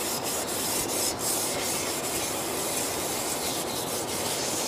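Stainless steel plate being scrubbed by hand while dishwashing: a steady rubbing sound.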